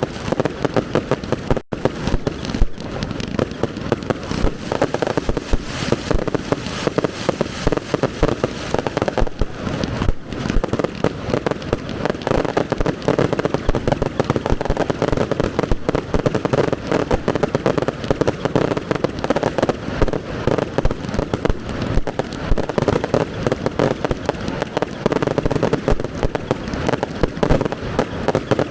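Fireworks display going off without a break: a dense, continuous barrage of bangs and crackles.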